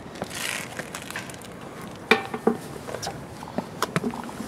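Handling noise from a cable and its metal connectors being worked up into the telescope base: irregular clicks and knocks, loudest about two seconds in, with a short rustling hiss near the start.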